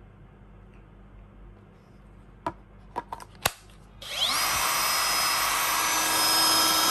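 A few sharp plastic clicks as the 18V battery is fitted to a Ryobi ONE+ HP brushless compact cut-off tool. About four seconds in, its motor spins up quickly and runs steadily at full speed with a high whine, the blade turning free with no load.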